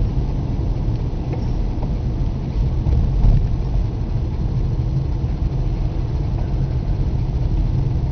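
Car driving across a steel truss bridge: a steady low rumble of engine and tyres on the deck.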